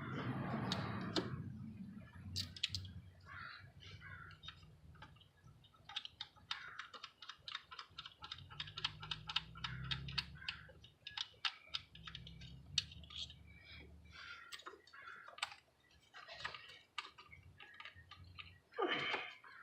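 Irregular plastic clicks and light knocks of hands working the ignition coils loose from the engine, with occasional low rumbling handling noise and a louder rustle near the end.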